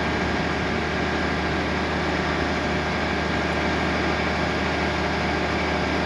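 1480 combine running steadily: a constant machine hum with several steady tones.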